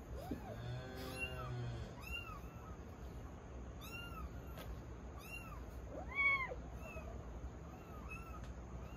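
Tabby kittens mewing: a run of short, high-pitched mews, about one every second or faster, the loudest about six seconds in.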